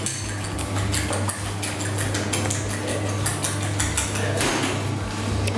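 Metal kitchen utensils clinking and scraping against pots and pans during egg cooking: a run of irregular light clicks over a steady low hum.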